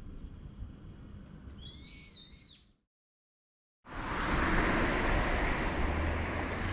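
Quiet outdoor ambience with a small bird calling a few short chirping notes about two seconds in. The sound then cuts out completely for about a second and comes back as a louder, steady rushing background with a low hum, like nearby road traffic.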